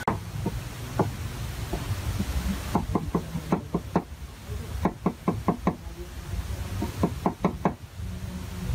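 Metal cleaver chopping on a round wooden chopping board, mincing shallots. It gives a few single knocks, then quick runs of four or five sharp chops a second.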